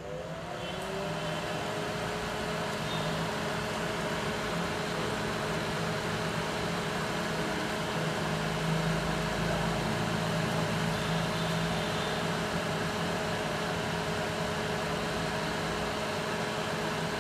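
A power amplifier's cooling fan spinning up at switch-on, its pitch rising over the first second, then running steadily with a low hum underneath.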